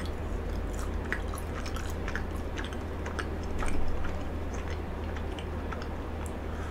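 Close-miked chewing of a mouthful of frozen cheesecake: many small, soft, crisp crunches and clicks, a little louder a little under four seconds in.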